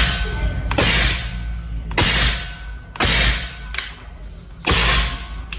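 Semi-automatic PCP air rifle firing four shots at uneven intervals, each a sharp crack followed by a hiss that fades over about half a second.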